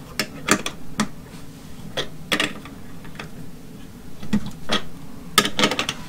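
Pliers gripping and turning the nut on a surge protector's metal grounding post, tightening it down on 10-gauge ground wire. The sound is a run of irregular sharp metal clicks, with a quick cluster near the end.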